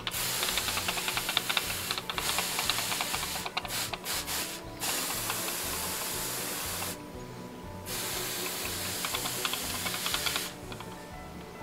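Hand-pump pressure sprayer misting plants with water: a steady hiss of fine spray in about four long bursts with short pauses, stopping shortly before the end.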